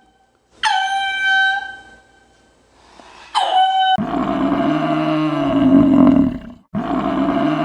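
Animal calls: two short, high-pitched calls, then from about four seconds in a long, low, drawn-out call that breaks off briefly and starts again near the end.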